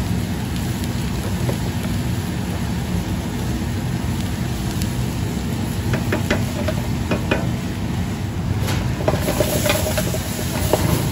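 Diced onions sizzling in a black steel frying pan over a steady low rumble, with a wooden spoon clicking against the pan several times. Near the end the pan is tossed and the sizzle turns louder and hissier.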